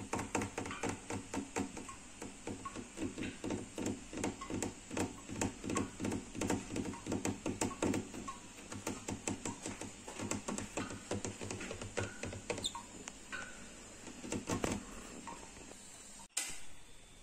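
Kitten crunching dry cat food, a quick run of sharp chewing clicks about four or five a second that thins out about halfway through.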